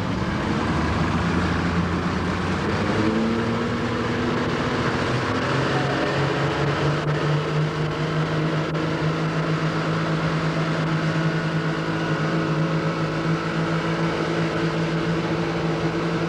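Boat engine speeding up, its pitch rising over a few seconds, then running steadily over a constant rushing noise.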